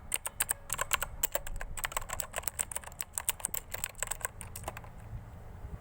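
Typing on a full-size mechanical keyboard with clicky blue switches: a fast, uneven run of sharp key clicks that stops about five seconds in.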